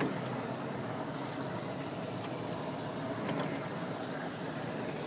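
Steady rushing noise of floodwater current around a small paddled boat, with a faint steady hum and a couple of faint knocks.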